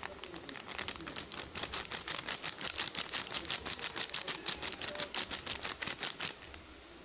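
A packet of pancake flour being shaken out onto a ceramic plate: the packet crinkles and the flour patters down in rapid, even ticks, about eight a second, which stop about six seconds in.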